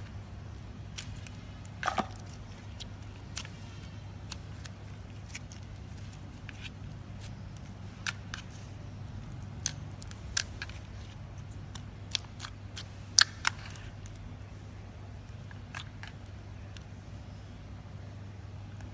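Clear slime with beads mixed in, pressed and poked by fingers: scattered crackling pops and clicks, sharpest about two seconds in and again about thirteen seconds in, over a steady low hum.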